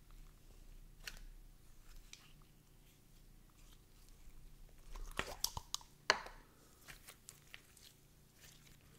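Soft, thick mochi-style slime dusted with cornstarch, poked, squished and stretched by hand. It gives faint sticky crackles and small pops, with a cluster of louder snapping pops about five to six seconds in.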